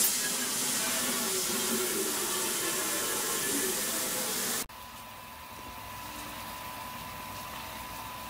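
Garden hose spray nozzle jetting water into an empty stainless steel brew kettle, a loud steady rushing splash. It cuts off abruptly about halfway through, leaving a quieter steady hiss with a faint high whine.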